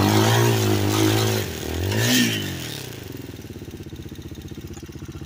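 Single-cylinder enduro motorcycle engine revving, easing off, revving briefly again about two seconds in, then dropping to a low steady putter for the rest.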